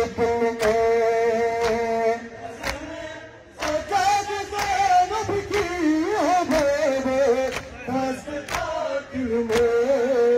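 A noha sung by men in long, held, mournful notes, with a regular slapping beat of open hands striking bare chests in matam, a little under two strikes a second. The strikes pause briefly about three seconds in, then resume.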